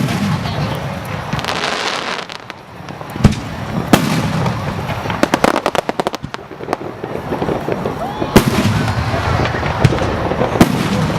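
Aerial fireworks shells bursting in a display: several sharp booms a few seconds apart, with a rapid run of crackling pops in the middle.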